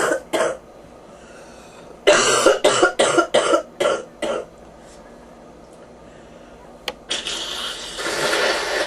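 Person with bronchitis coughing: two coughs at the start, then a fit of about seven coughs in quick succession. Near the end comes a long noisy stretch of nearly two seconds that grows louder.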